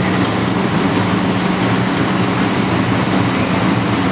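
Steady, loud drone of fire apparatus engines and pumps running, a low hum under a broad rush of noise that stays level throughout.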